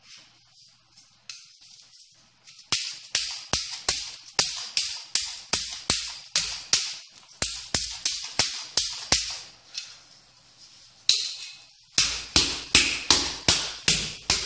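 Knife blade stabbing again and again into a stainless-steel chainmail vest worn on the body: a stab test of the armour. Each blow is a sharp metallic clash with a jingle of the rings, about two to three a second, with a pause a little past the middle and a quicker run near the end.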